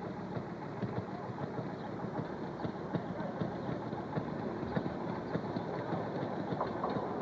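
Railroad motorcar engine running, with rapid, uneven popping.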